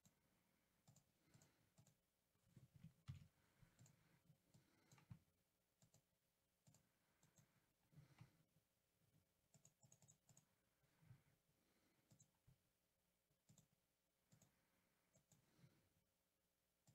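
Near silence with faint, scattered computer mouse clicks.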